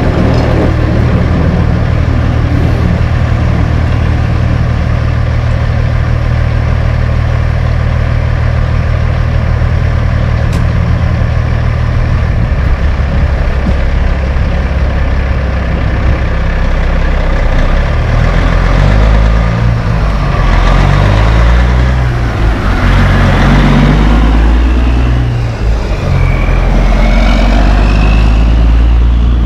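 Caterpillar diesel engine of a Kenworth T800H tandem dump truck with loud stacks, idling steadily, then pulling away loaded from a little under halfway through, its engine note rising and falling repeatedly as it accelerates and shifts.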